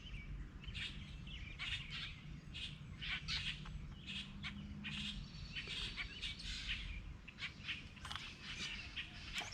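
Small birds chirping, many short, scattered chirps.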